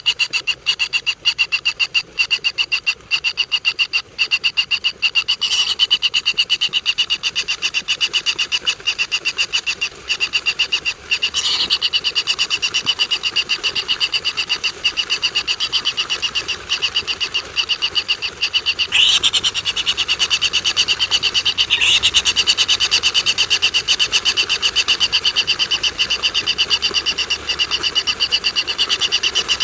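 Continuous chorus of rapid, pulsing high-pitched animal calls, with a few brief louder sweeps.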